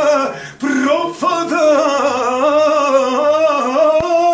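A man singing a Serbian folk song unaccompanied, drawing one word out over long, wavering, ornamented notes. There is a short breath about half a second in.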